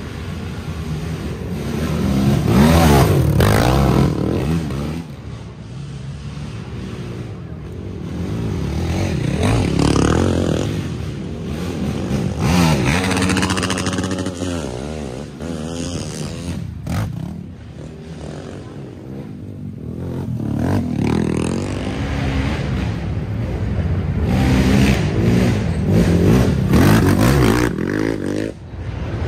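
Racing ATV (quad) engines revving hard and shifting up and down as the quads climb a hill, passing one after another; each pass swells and fades, with several in a row.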